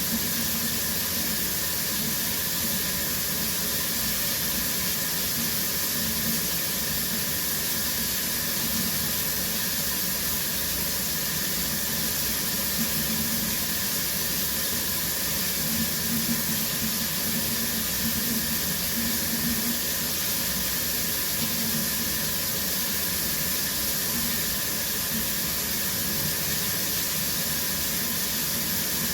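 Shower running steadily: water spraying from the showerhead and splashing down in an even, unbroken hiss.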